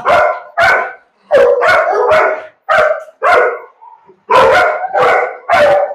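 Two young bullmastiffs in a kennel cage barking repeatedly at close range, about two loud barks a second, with a short pause about four seconds in.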